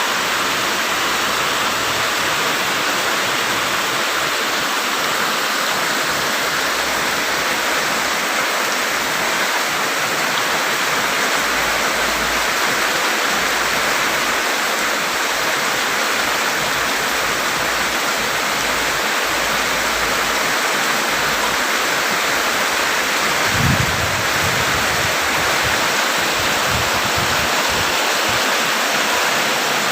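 Heavy rain falling in a steady dense hiss. A brief low thump about twenty-four seconds in, with a few weaker ones after it.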